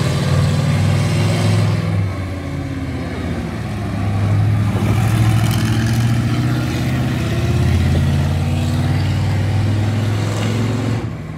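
Red Dragon monster truck's engine running as it drives, the engine note swelling and easing with the throttle: loud at first, easing about two seconds in, rising again around four to six seconds and again from about eight seconds, then dropping off near the end.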